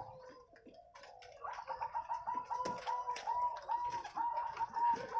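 Zebra dove (perkutut) cooing: after a quieter first second or so, a rapid run of short, hooked coo notes, several a second, running on to the end.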